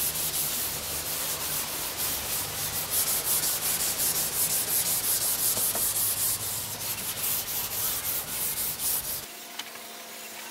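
Hand wet-sanding the cured epoxy finish of a surfboard with 400-grit wet/dry sandpaper: quick, rhythmic rasping strokes of the paper over the hard coat, stopping suddenly about nine seconds in.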